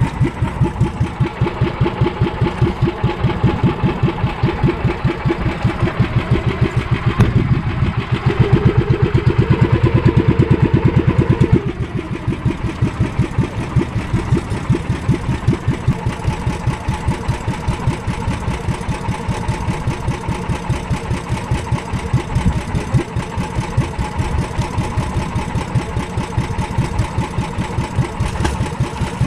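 Small boat's gasoline engine running with an even, rapid chug. About seven seconds in it speeds up and gets louder for about four seconds, then drops back to a slower, steady run.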